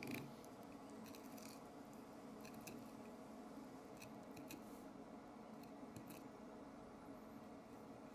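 Knife slicing through a mahi-mahi along its backbone, faint scattered clicks and scrapes as the blade runs over the bones.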